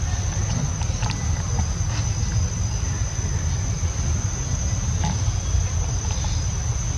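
A steady, high insect drone over a loud, uneven low rumble, with a few faint clicks.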